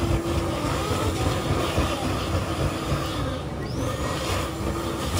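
Build-A-Bear stuffing machine running, its blower pushing a steady, low rush of air and fluff through the nozzle into a plush bear.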